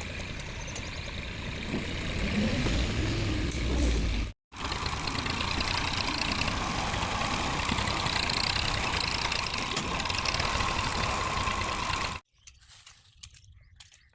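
Chainsaw engine running steadily under load, with a steady whine. It cuts out briefly a little over four seconds in, runs on, then stops abruptly about twelve seconds in.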